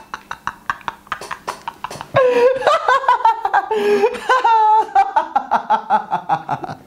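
A man laughing hard: quick, breathy bursts at first, then a louder, pitched laugh in pulses from about two seconds in, trailing off near the end.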